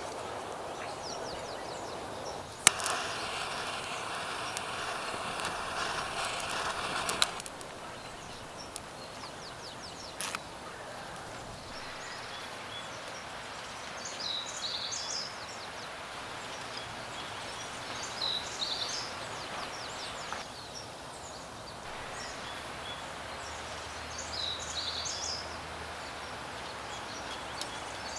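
Outdoor ambience: a steady hiss with a bird calling in short high chirps every few seconds. A few seconds in, a sharp click starts a louder rushing hiss that lasts about four seconds and stops suddenly.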